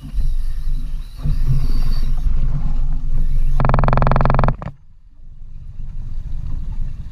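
Shimano Stella spinning reel's drag buzzing for about a second, a fast rapid clicking as a hooked bluefin tuna pulls line, then cutting off sharply. A steady low rumble runs underneath.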